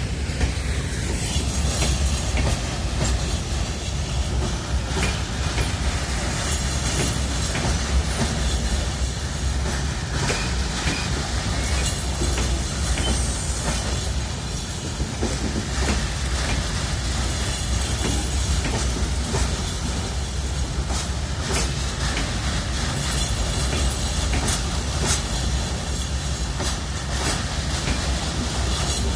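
Passenger train coaches rolling past, a steady rumble with irregular clicks of the wheels over rail joints.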